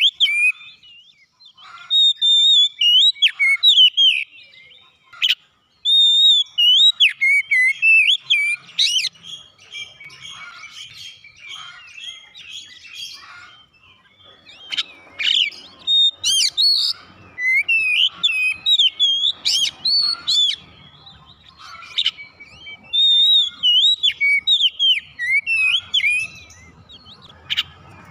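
Oriental magpie-robin singing: a run of loud, varied whistled phrases with quick rising and falling glides, delivered in bursts broken by short pauses.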